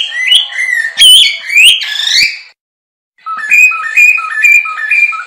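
Bird-like whistled chirps: quick sweeping up-and-down whistles for about two and a half seconds, a short pause, then a run of rising stepped notes repeated about four times.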